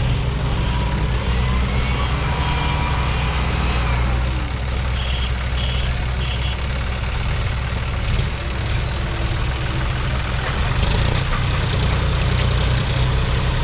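Diesel tractor engines running steadily under load, a low hum with a deep, even beat, as a John Deere tractor tows a Kubota tractor that is stuck with a loaded soil trolley.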